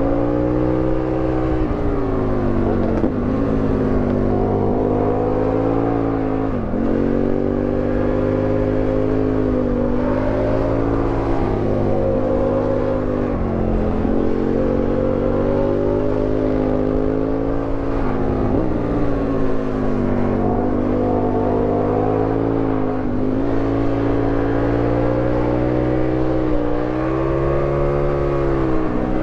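Aprilia Tuono 1000R's 60-degree V-twin engine, heard from a camera on the bike, revving up and falling back again and again as the rider accelerates and rolls off through the bends, with several sharp drops in pitch.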